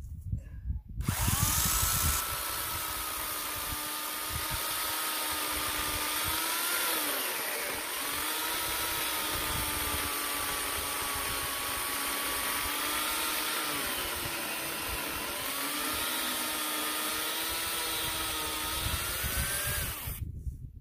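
A 15-amp Teccpo corded electric chainsaw starts up about a second in and cuts through a dead log. It makes a steady motor whine that sags in pitch and recovers twice as the chain works through the wood, then cuts off shortly before the end.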